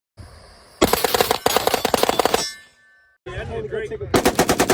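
Two long bursts of rapid automatic gunfire, about twelve shots a second, the second starting near the end.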